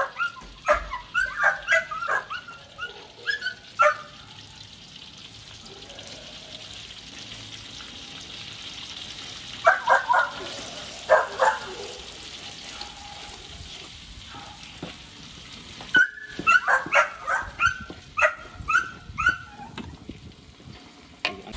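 A small dog barking and yipping in three bouts of short, quick calls, over the steady sizzle of chili spice paste frying in oil in a wok.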